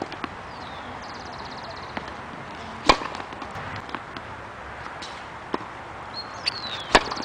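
Tennis ball struck by a racket: two sharp hits about four seconds apart, with fainter knocks between them.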